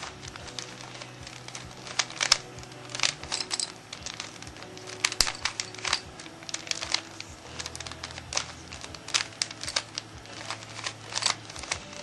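Rubik's Cube being twisted over and over to scramble it: irregular plastic clicks and clacks as the layers turn, several a second.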